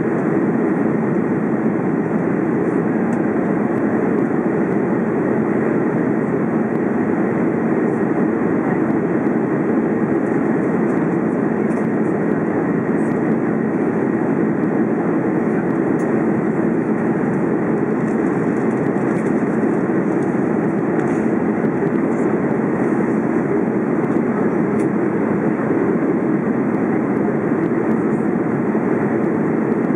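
Steady cabin noise of an Airbus A330 climbing after take-off, heard inside the cabin over the wing: the jet engines and the rush of air along the fuselage as one even, low rumble.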